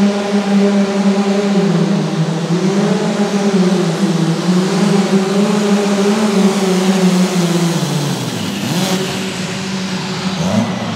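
Super stock pulling tractor's turbocharged engine running at high revs under full load, its pitch wavering as it pulls the sled. About eight seconds in the revs drop sharply as the run ends, with a brief sharp crack just after.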